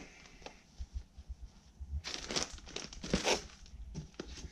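Plastic wrapping on packs of microfiber towels crinkling and rustling as they are handled and stacked, quiet at first and loudest from about two seconds in.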